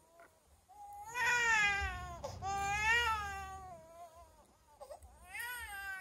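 Toddler girl screaming and crying in three high-pitched wails, two long ones followed by a shorter one near the end: the cry of a child wanting to nurse at her mother's breast.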